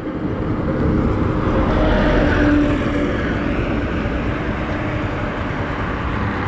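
A 2008 Yamaha FZ16's single-cylinder engine running on the move, under a heavy rush of wind and road noise. It grows louder over the first two seconds or so, then holds steady.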